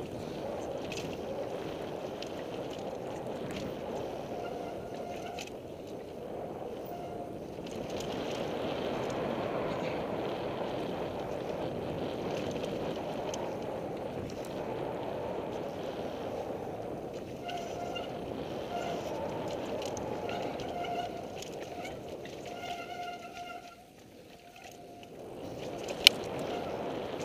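Devinci Wilson downhill mountain bike running fast down a rough dirt trail, heard from a helmet camera as steady wind and tyre rumble. The disc brakes squeal in short bursts several times, mostly in the second half. Near the end it briefly goes quieter, then comes a single sharp knock.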